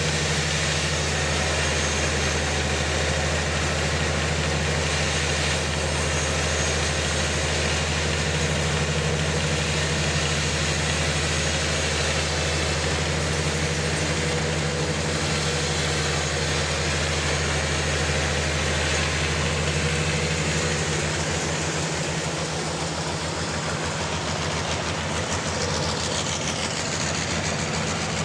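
Sawmill's engine running steadily with a constant low hum. About twenty seconds in, the deepest part of the hum breaks up and the sound gets slightly quieter.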